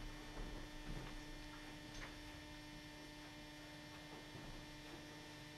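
Low, steady electrical mains hum in the recording, with a few faint knocks in the first two seconds.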